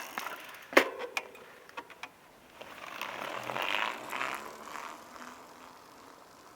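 Bicycle sound effect: a few sharp metallic clicks, the loudest about a second in with a short ring after it, then a whirring, fast-ticking noise that swells in the middle and fades away.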